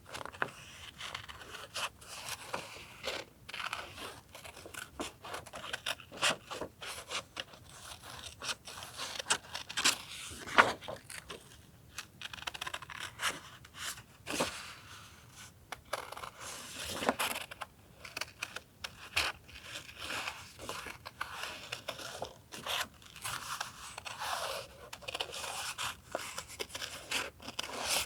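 Paper being handled for journal collage: rustling, scraping and tearing in irregular bursts, with sharp clicks and taps in between.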